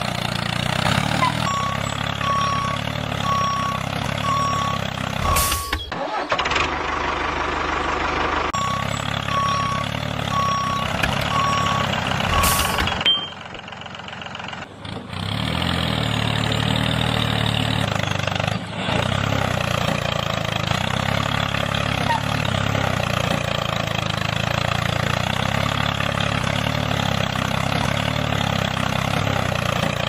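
Tractor-style engine running steadily, with a reversing alarm beeping repeatedly over the first dozen seconds. The sound breaks off and changes abruptly several times.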